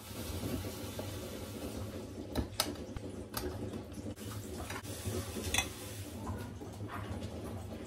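Dishes and utensils being handled: scattered light clicks and clinks, a few sharper taps among them, over a low steady hum.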